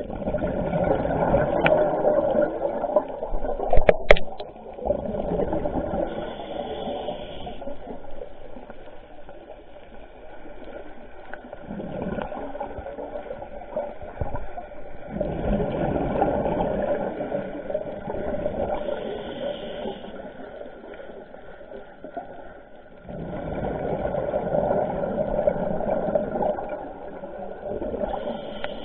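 Scuba diver's exhaled bubbles rushing past an underwater camera, coming in three long surges that swell and fade, with a sharp click about four seconds in.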